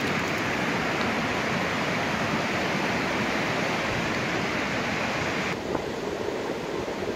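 Steady rush of flowing river water. About five and a half seconds in it cuts abruptly to a duller, slightly quieter rush.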